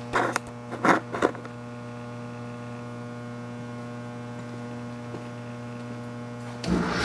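Steady electrical hum from the three-phase Clausing drill press, with three sharp knocks in the first second or so. Near the end a drill press head motor switches on and runs, its belt on the highest speed.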